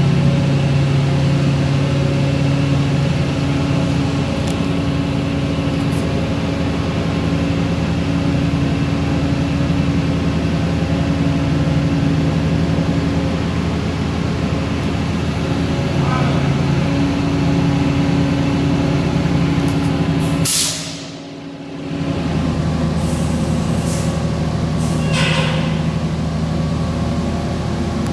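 Industrial mesh belt tempering and annealing furnace line running with a steady machine hum. Short hissing bursts come about 20 and 25 seconds in, the first followed by a brief dip in level.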